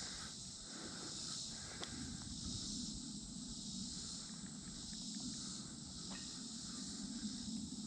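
Steady high chirring of an insect chorus around the pond, with a couple of faint clicks.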